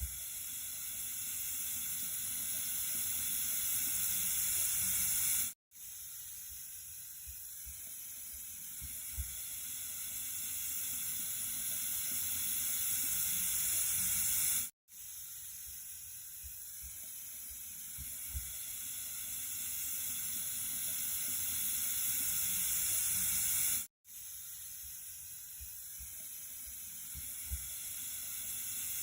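Flowing water: a steady, hissy rush heaviest in the high end. It drops out briefly about every nine seconds and restarts, and each stretch grows gradually louder, as a looped recording does.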